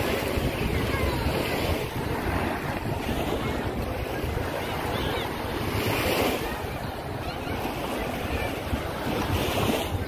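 Small waves lapping and washing onto a sandy shore, swelling a few times, with wind buffeting the microphone and faint voices of a beach crowd.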